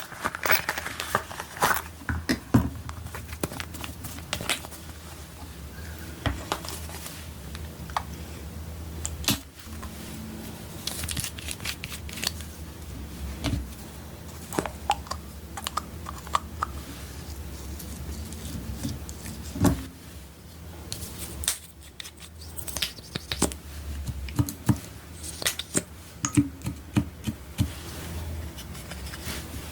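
Slime and makeup being handled and mixed by hand: irregular small clicks, taps and scrapes, over a steady low hum.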